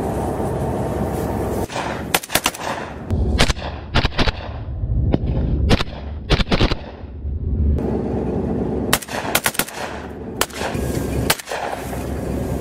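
Assault rifles firing in short automatic bursts and single shots, starting about two seconds in, over a steady low rumble.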